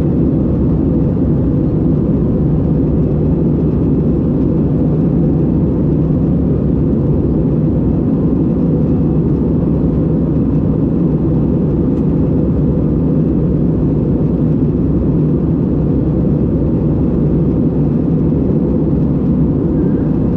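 Steady cabin noise of an Airbus A320 airliner in cruise, heard from a window seat: an even, deep rumble of the engines and rushing air.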